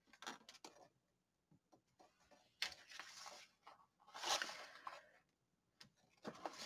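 A stiff, paint-stained sheet of art paper rustling and sliding over the desk as it is moved and lifted, in two short stretches. A few faint taps come just before, from a stamp block on the paper.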